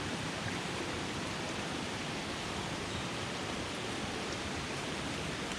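Steady rush of water cascading down a jungle waterfall and stream.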